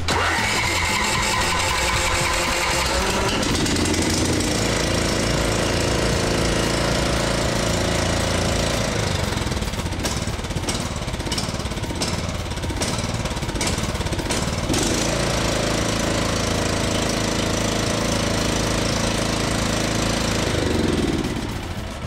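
Troy-Bilt riding mower's 420cc Powermore OHV single-cylinder engine running after a carburetor cleaning that cured its no-start. Its speed changes a few times, and it winds down and drops away just before the end.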